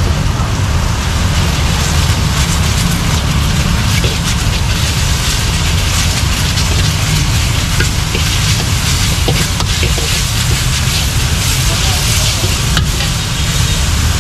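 Greens sizzling as they are stir-fried in a steel wok, with metal tongs and spatula clinking and scraping against the pan now and then, over a steady low rumble.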